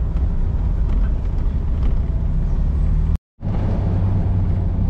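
Car driving along a road: a steady low engine and road rumble. It cuts out completely for a moment about three seconds in, then carries on.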